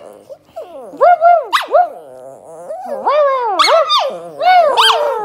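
Maltese dog 'talking': several bursts of short yowling vocalizations whose pitch rises and falls.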